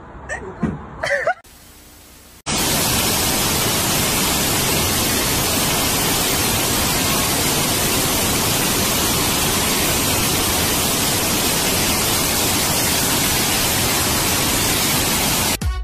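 Loud, steady rushing of water from a standing-wave surf machine, starting suddenly a couple of seconds in and holding at one level as the water sheet pours over the riding surface.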